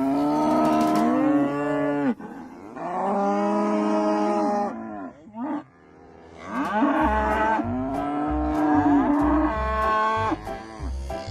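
Cattle mooing: about four long, drawn-out calls, one after another, with the last call the longest.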